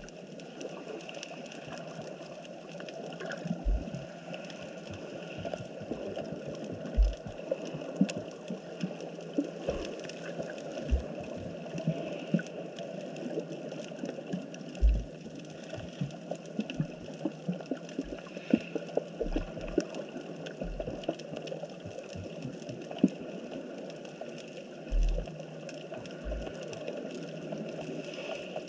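Underwater ambience picked up by a camera in its waterproof housing on the seabed: a steady, muffled wash of moving water with irregular clicks and crackles and a few low thumps.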